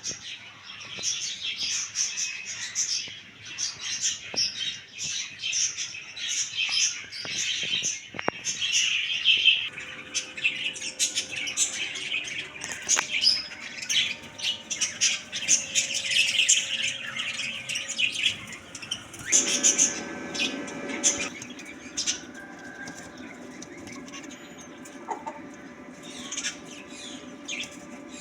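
Parrots chirping and squawking, with many quick, high calls one after another.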